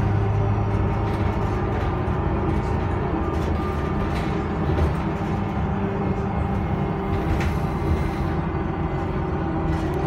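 Iveco Urbanway 12 city bus heard from inside the passenger cabin while driving: a steady engine and drivetrain hum with road rumble, and a few faint clicks from the interior fittings.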